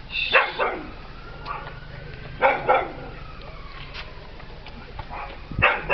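A dog barking at a cat in short, sharp barks: two quick barks right at the start, two more about two and a half seconds in, and another near the end.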